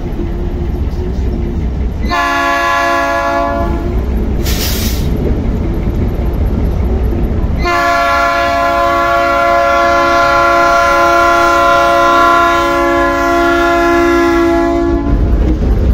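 Diesel freight locomotive's multi-tone air horn sounding for a road crossing: a short blast of about two seconds, then a long blast of about seven seconds, over a steady low rumble.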